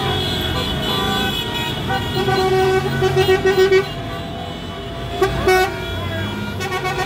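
Car horns honking in street traffic: a long blast breaking into a run of quick toots between about two and four seconds in, then another short blast just after five seconds, over steady traffic noise.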